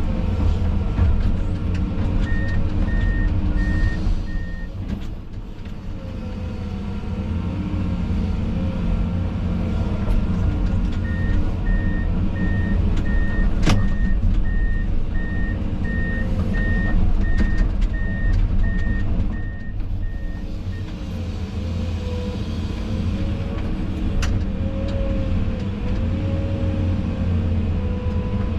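Excavator's diesel engine running steadily under load while digging, with a reversing alarm beeping in two runs: a short one a couple of seconds in and a longer one from about eleven to twenty seconds in. Two sharp knocks, one around the middle and one near the end.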